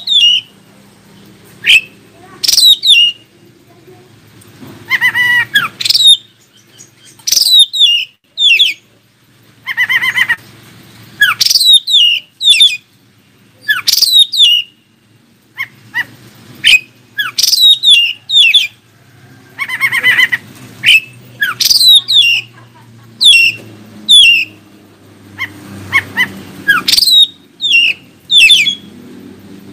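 Oriental magpie-robin singing: loud, short whistled notes that sweep downward in pitch, delivered in quick clusters of two to four with brief pauses between.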